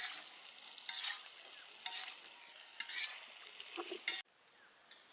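Pasta in tomato sauce sizzling in a pan as it is stirred, with a scraping stroke about once a second. The sound cuts off suddenly about four seconds in.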